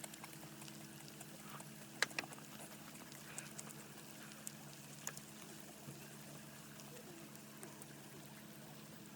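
Faint sizzling with scattered small pops and crackles from food cooking on a grill, over a steady low hum.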